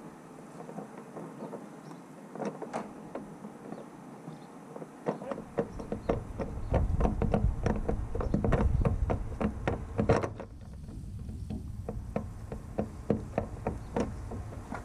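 Screwdriver clicking, tapping and scraping against a small metal fuel pressure regulator and its fittings, many light knocks in an uneven run. A low rumble joins in from about five seconds in and cuts off about ten seconds in.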